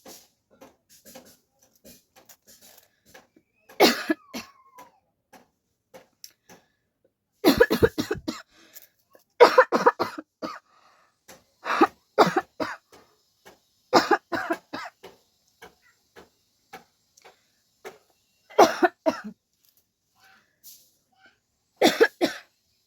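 A woman coughing in several short bouts, each a quick run of coughs, with pauses of a second or more between bouts.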